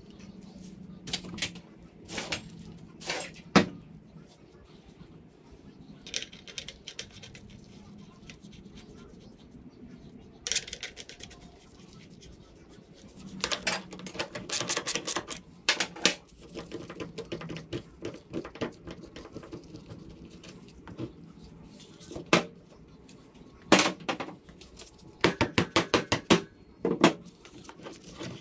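Hand tools working on dirt-bike front-end parts, making scattered metallic clicks, clinks and knocks. Busier clusters come about halfway through and again near the end, where there is a run of quick, evenly spaced clicks.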